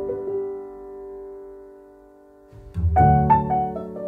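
Background piano music: slow chords, one ringing out and fading, then a new chord struck about three seconds in.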